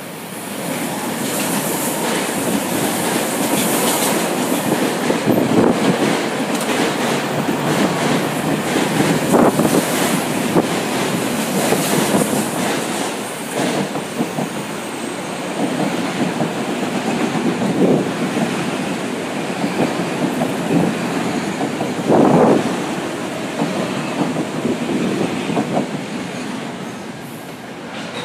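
Metro-North commuter trains rolling close beneath, one after another, with a steady rumble of wheels on rail that builds about a second in. Irregular clacks sound as the wheels cross rail joints, and one sharp clack about three-quarters of the way through is the loudest.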